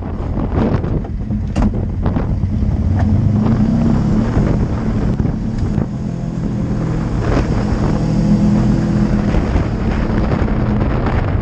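Off-road vehicle engine running under load during a tow-strap recovery of a side-by-side stuck in sand, getting louder a couple of times, with wind buffeting the microphone.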